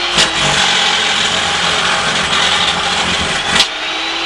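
Steady, even noise of an electric jackhammer running in the nearby excavation, with a short sharp noise about three and a half seconds in.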